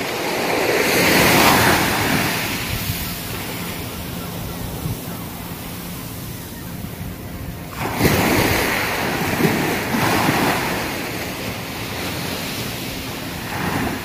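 Small waves breaking and washing up a sandy beach. One surge peaks about a second and a half in and fades; another comes in suddenly about eight seconds in.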